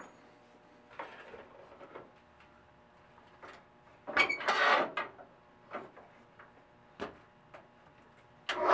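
Knocks and clinks of 1/2-inch threaded rod being shifted in a metal-cutting band saw's vise, with a louder rattle about four seconds in. Near the end the band saw starts up again.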